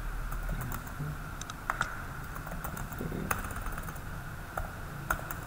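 Computer keyboard being typed on: a few scattered keystrokes with irregular gaps between them.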